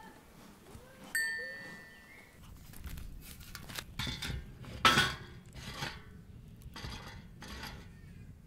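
A single bright metallic ring about a second in, then a run of clattering knocks and scrapes as a wire grill and metal are handled over a wood fire. The loudest knock comes about five seconds in.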